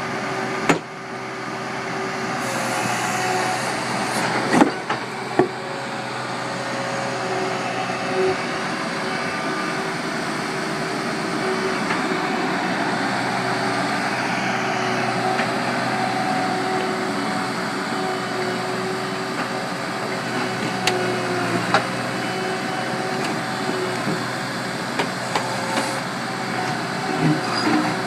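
John Deere 260 skid steer's diesel engine running steadily under work, with a few sharp clanks and knocks as it rips up concrete.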